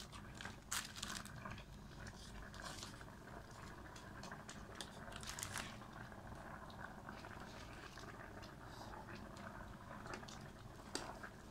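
Metal ladle stirring noodle soup in a stainless steel pot: soft liquid sloshing with a few sharp clinks of metal on metal, the loudest clink near the end.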